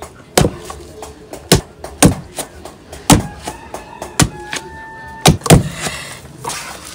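Wooden pestle pounding fufu dough of cassava and plantain in a wooden mortar, giving the combined batches their final pounding: about seven dull thuds, roughly a second apart.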